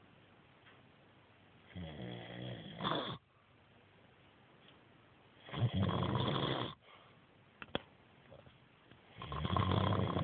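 A sleeping man snoring: three snores about four seconds apart, each lasting about a second, with quiet breathing between.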